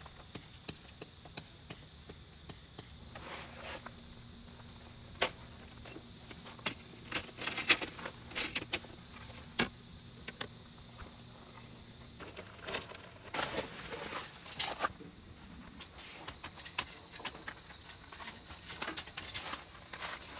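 Footsteps crunching on gravel and the clatter of folding camping furniture being handled and set down: scattered clicks and knocks of metal and wood frames, with a few louder crunchy stretches.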